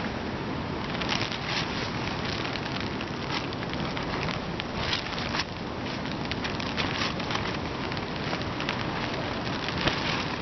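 Steady rain with wind, many individual drops pattering sharply over a constant hiss.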